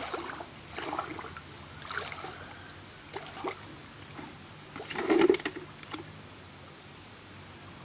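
Shallow lake water sloshing and splashing in irregular bursts around a person wading and groping underwater with her hands, the loudest splash about five seconds in, then quieter from about six seconds.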